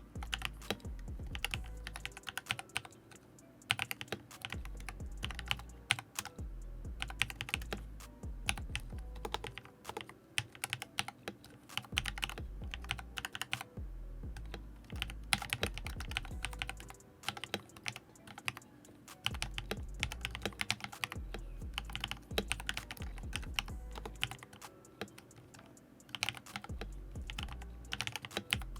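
Mechanical keyboard typing: a Redragon Lakshmi K606R fitted with AKKO CS Matcha Green linear switches and PBT keycaps, keys pressed in fast, irregular runs of clicks with brief pauses.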